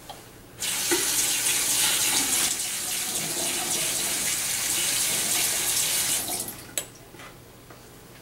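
Bathroom sink tap running, a plastic spoon being rinsed under it. The water comes on about half a second in and shuts off after about six seconds, followed by one short click.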